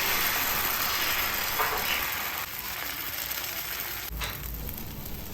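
Dosa batter sizzling on a hot tawa just after being ladled on, a steady hiss that eases off about halfway through.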